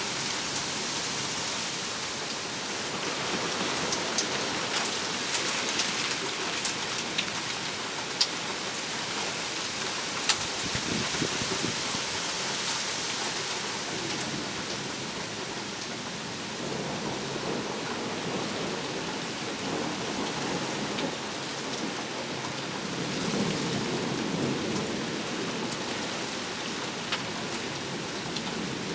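Steady rain hissing, with sharp drip ticks now and then in the first half and low thunder rumbles swelling twice, the stronger one a little over twenty seconds in.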